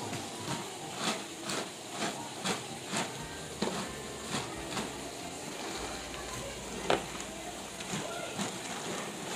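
A sponge scrubbing wet, soapy tent fabric in a basin of sudsy water, in repeated short swishing strokes roughly twice a second, with the wet cloth sloshing and rustling as it is handled.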